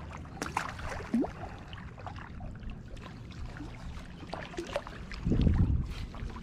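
Wind-rippled lake water lapping along a rocky shore, with a small splash as a released bluegill drops in and scattered light clicks from handling a spinning rod and reel. A brief low buffeting of wind on the microphone about five seconds in.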